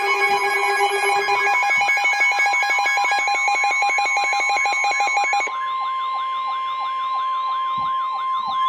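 Emergency Alert System attention signal: several steady electronic alert tones layered with a fast-pulsing, sweeping siren sound. About five and a half seconds in, it changes to a single steady alarm tone under a siren sweeping up and down about three times a second.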